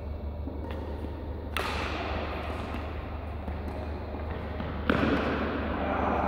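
Badminton rackets striking a shuttlecock during a rally: two loud, sharp hits about one and a half seconds and five seconds in, the second the loudest, with fainter hits between, echoing in a large sports hall over a steady low hum.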